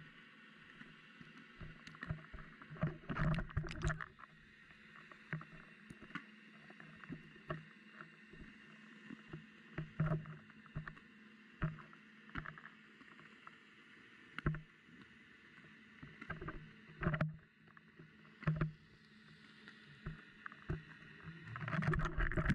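Underwater sound picked up by a submerged camera: irregular sharp clicks and knocks, some with a dull thud, over a faint steady hiss of water.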